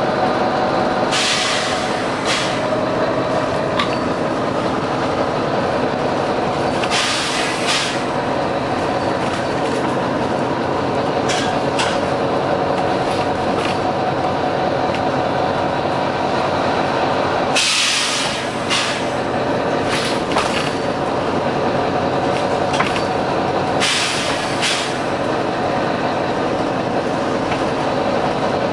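Volvo B9TL double-decker bus running with a steady engine drone, broken every few seconds by short bursts of hiss from its compressed-air system, about eight in all, the longer ones lasting about a second.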